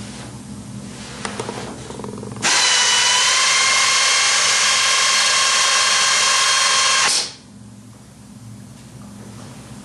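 3M Dynamic Mixing System dispenser gun's motor running for about five seconds, a steady whine as it mixes and pushes two-part body filler out of its cartridge. It starts and stops abruptly.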